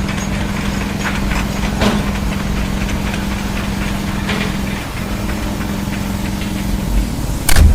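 An engine idling steadily, with a loud knock near the end.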